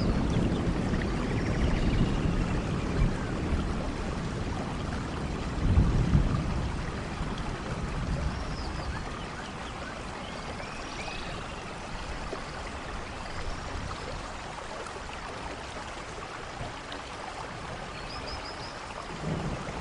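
Steady soft rain falling, with low rumbles of thunder near the start and again about six seconds in that die away, and a few faint high chirps.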